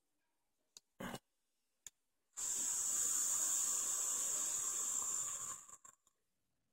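Atomizer coil on a Nemesis mechanical vape mod hissing steadily for about three seconds as it fires under a long draw, then cutting off. A short tick comes about a second in.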